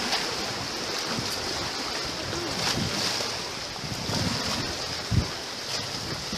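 Steady wash of sea surf on a rocky shore, with wind rumbling on the microphone; a short low thump about five seconds in.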